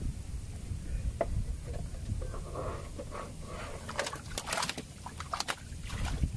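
Water sloshing and splashing as a person wades chest-deep through a weedy river, with a cluster of sharper splashes between about four and five and a half seconds in.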